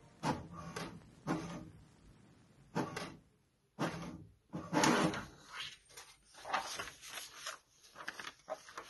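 An irregular run of short clunks and rattles from the HP DeskJet 2710e inkjet printer's mechanism, with its power light blinking, followed by paper being handled near the end.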